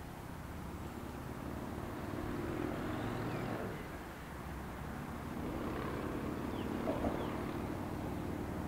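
Diesel rail motor 621-721 approaching, its engine drone slowly growing louder, with a few faint bird chirps over it.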